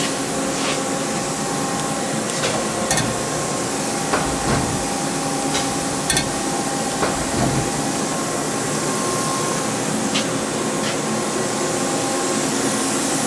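1991 Miyano LE-31 CNC turning center running with a steady hum and hiss, with a handful of short clicks and knocks as its parts catcher tray swings in and out.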